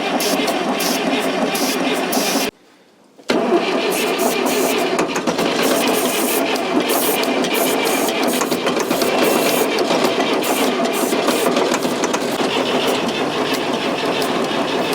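The Fordson Super Major's 3.6-litre four-cylinder diesel being cranked over by its starter on a dose of brake cleaner, struggling to start. The cranking breaks off for under a second about two and a half seconds in, then carries on.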